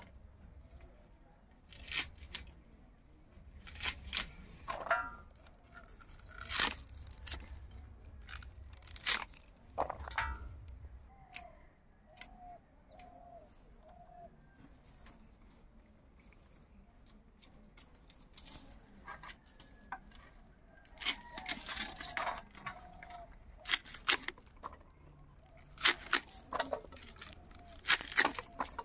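Green onion stalks being chopped with a large curved iron chopper blade: short crisp crunching cuts at irregular intervals, sparser through the middle and coming quicker near the end.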